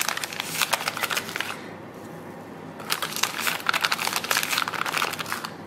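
Paper pudding-mix pouch crinkling and rustling as a spoon scoops powder out of it, with small clicks and taps; it stops for about a second partway through, then picks up again.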